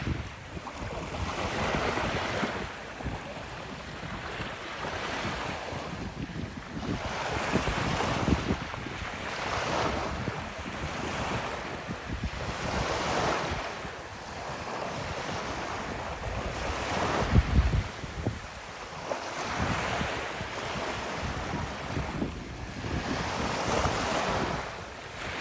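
Ocean waves breaking and washing up a beach, a new swell every three to four seconds, with wind buffeting the microphone in gusts, strongest about two-thirds of the way through.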